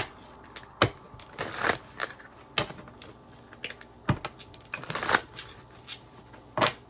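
Tarot cards being handled: a few sharp snaps of cards slapped down or flipped, with two longer rustling swishes of the deck being shuffled.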